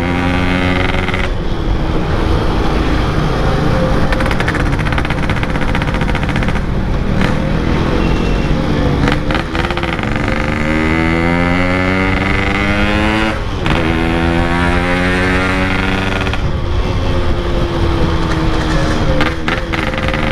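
Yamaha RX-King two-stroke motorcycle with a Packing Power exhaust, riding and accelerating through the gears. The engine note rises steadily and then drops at each upshift, about three times.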